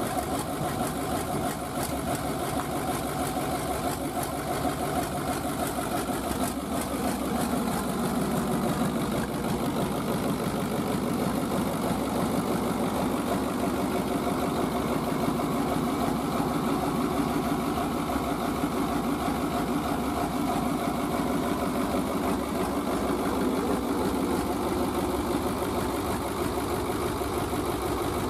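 Cummins V8 diesel engine on a test stand, running at idle through short open exhaust stacks; its speed picks up slightly about seven seconds in and then holds steady.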